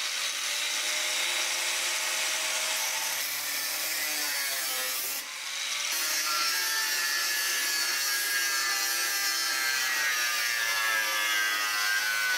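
Angle grinder with a cut-off disc cutting through a clamped metal strip: a loud, steady grinding hiss over the motor's whine, which sags and recovers as the disc bites. The cut eases off briefly about five seconds in, then resumes.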